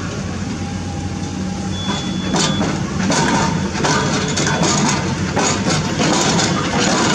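Diesel engine of a Sany SR150C hydraulic rotary drilling rig running under load, with a steady low hum that gets louder about three seconds in. Several short sharp noises sound over it.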